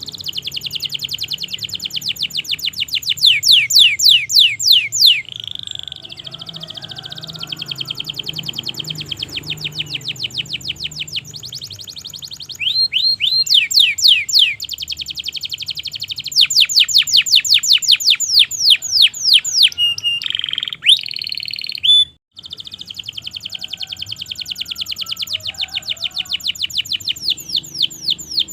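Domestic canary singing a long, continuous song of rapid rolling trills, the notes repeated many times a second, with louder passages of sharply falling notes. The song breaks off briefly about three-quarters of the way through, then resumes.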